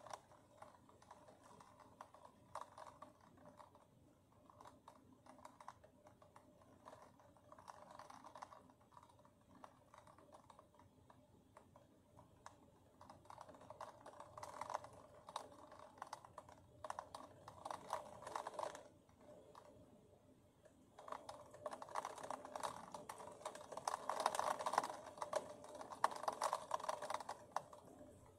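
Rain tapping against a window pane, a dense run of small clicks that comes in waves, heavier around the middle and heaviest in the last third.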